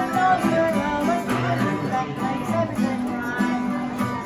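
Acoustic guitar being strummed, with a man singing along.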